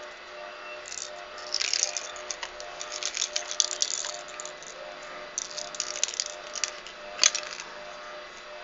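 A clattering rattle of small hard objects in two spells of quick clicks, the second ending in one sharp click.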